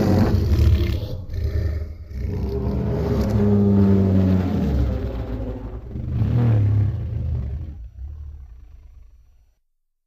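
Godzilla roar sound effect: one long, rough, pitched roar that swells several times and fades out near the end.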